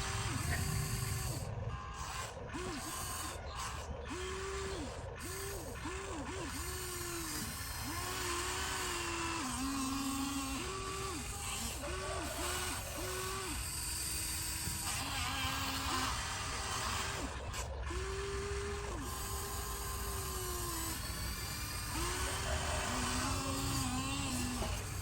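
Electric hydraulic pump of an RC model excavator whining in short spells, switching on and off repeatedly as the controls are worked, at a higher and a lower pitch, over a gritty mechanical background.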